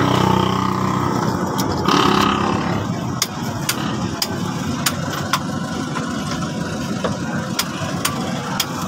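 An engine running steadily, with scattered sharp metallic clicks over it.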